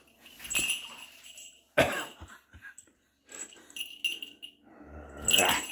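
Small bell on a cat's collar jingling in short bursts as the cat moves, with one brief knock on the floor just before two seconds in.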